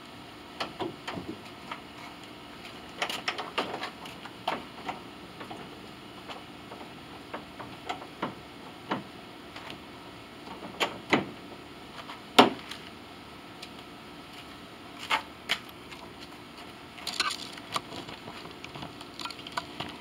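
Irregular sharp clicks and knocks of a metal hood latch catch being handled and fitted onto a Jeep Wrangler's hood and body; the loudest knocks come about eleven and twelve seconds in.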